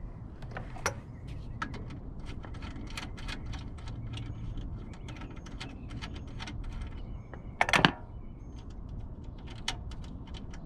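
Ratchet wrench clicking in short irregular runs while 10 mm bolts holding the wiring at the Prius inverter are undone, with one louder knock a little before the end.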